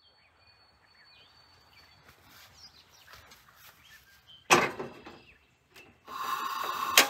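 A stainless steel kettle set down on a camp stove's metal grate with one sharp clank that rings briefly. About a second before the end a loud steady rushing sound begins.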